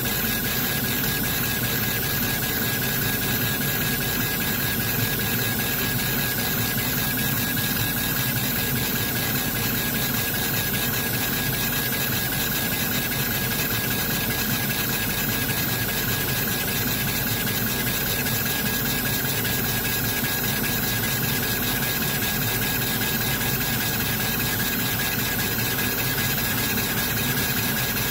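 Laser engraver running while raster-engraving a photo into wood: a steady machine whirr of its fans and fast-sweeping gantry, with a constant high whine over it.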